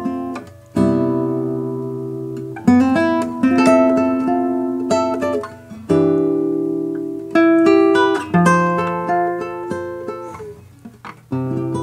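Solo classical guitar playing a slow piece: plucked chords and notes are left to ring and fade, with each new phrase starting on a fresh attack every one to three seconds.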